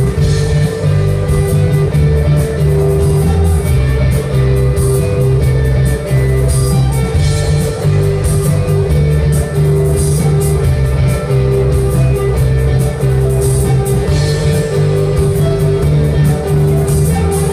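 Rock band playing live and loud: electric guitars, bass guitar and drum kit with steady cymbal strokes, heard from the audience.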